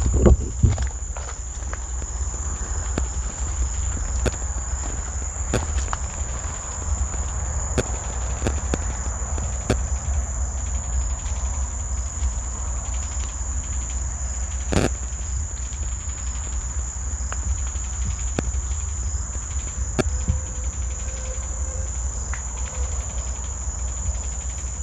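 Steady high-pitched insect chorus over a low rumble, with scattered sharp clicks, one stronger about halfway through.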